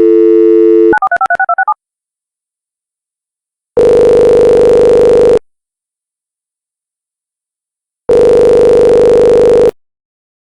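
Telephone dial tone that stops about a second in, followed by a quick run of touch-tone dialing beeps. Then come two ringing tones of about a second and a half each, the call ringing through at the other end.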